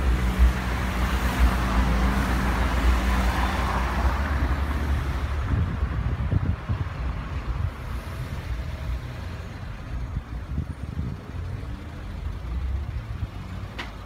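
A car running and moving, with a rushing noise that dies down about five seconds in, leaving a low engine rumble.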